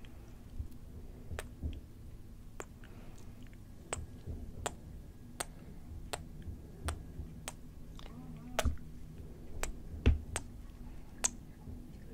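Sharp, close-miked clicks and pops made during ASMR plucking gestures, irregular, about one or two a second. A faint steady low hum runs underneath.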